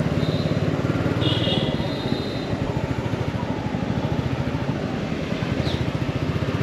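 Royal Enfield Meteor 350's single-cylinder engine running steadily under way, a rapid even beat of firing pulses over road and wind noise. A faint high tone is heard briefly about a second in.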